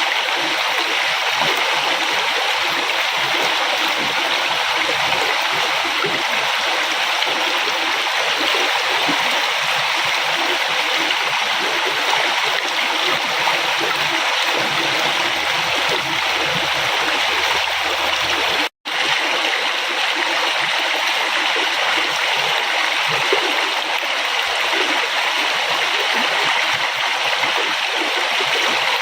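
Flowing river water rushing and splashing steadily, an even hiss of water. The sound cuts out for an instant about two-thirds of the way through, then resumes.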